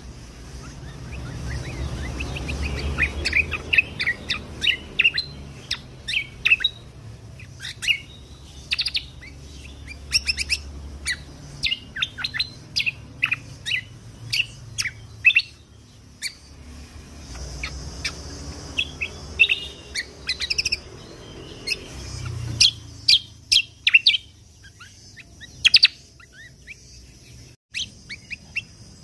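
Kecial kombok (cucak kombo) songbird singing a fast string of sharp, high chirps and trilled notes in repeated bursts, over a low background rumble.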